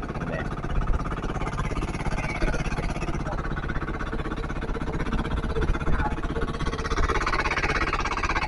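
Small engine of a wooden outrigger fishing boat running steadily under way, with the wash of water along the hull.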